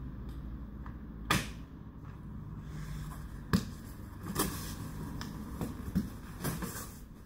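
Plastic clicks and knocks from a Camarelo Baleo Shine pram's infant car seat and frame being handled: a few separate sharp clicks, the loudest about a second in and again in the middle, then several lighter ones.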